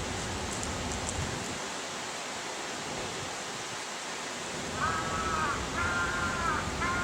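Steady outdoor background hiss. Near the end, three short pitched calls come about a second apart, each holding its pitch and then dipping at the end.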